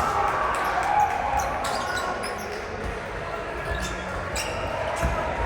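Basketball bouncing on a hardwood gym court during a game, with irregular bounces and short knocks.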